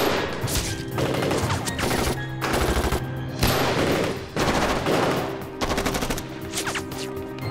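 Rapid gunfire in a shootout, shots coming in quick clusters, over a steady background music score.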